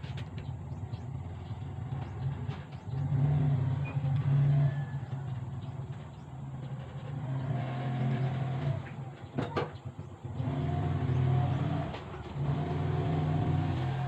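Bajaj CT100 single-cylinder four-stroke motorcycle engine running after its overhaul, revved up and eased back several times. There is one sharp click about two-thirds of the way through.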